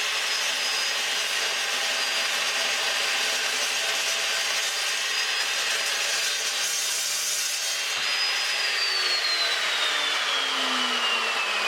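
Evolution R355 chop saw cutting through 1/4 inch mild steel plate with its carbide-tipped blade: a steady, loud grinding rasp with a high motor whine. About two-thirds of the way in there is a click, and the motor whine then falls steadily in pitch as the saw winds down.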